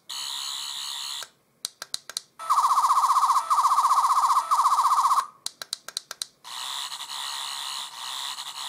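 Eleventh Doctor sonic screwdriver toy playing its electronic sound effects: a warbling buzz, then a run of quick button clicks, then a different, louder, rapidly pulsing hidden sound effect for about three seconds in three stretches. More clicks follow, and the usual warble comes back near the end.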